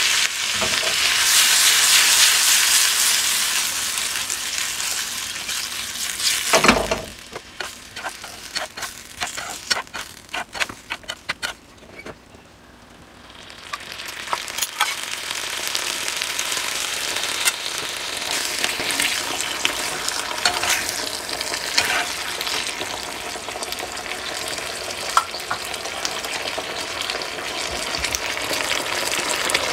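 Tofu, onion and peppers in chilli sauce sizzling as they stir-fry in a frying pan over a gas flame. A wooden spatula scrapes and clacks against the pan. The sizzle dies down for a moment about halfway through, then comes back steady.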